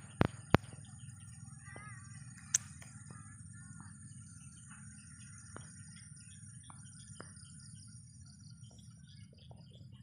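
Small birds chirping and twittering in many short scattered calls over a rice field, over a steady high-pitched whine and a low constant rumble. A few sharp clicks in the first three seconds are the loudest sounds.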